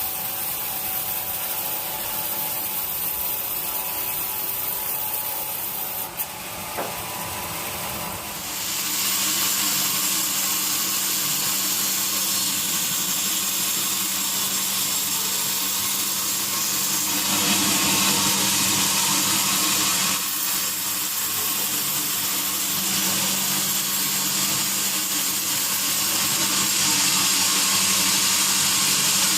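Sawmill saw cutting through a teak log, a steady grinding whine that grows louder and takes on a steady hum about eight seconds in as the blade works deeper into the wood.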